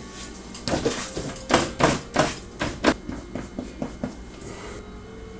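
A quick run of about a dozen light, sharp taps and clinks of small hard objects, roughly three a second, fading out after a few seconds.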